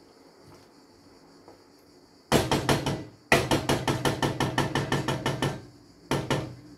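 Wooden spoon knocked rapidly against the rim of a metal cooking pot, about nine knocks a second. A short run comes about two seconds in, a longer run of about twenty knocks follows, and a brief run comes near the end.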